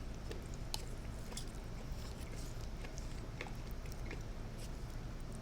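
Close-miked chewing with small, scattered wet mouth clicks and smacks, over a steady low hum.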